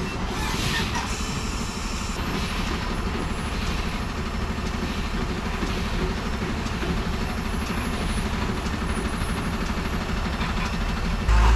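Heavy lorry's diesel engine running steadily at low speed, a continuous rumble with fast low firing pulses, as the truck crawls round a hairpin bend.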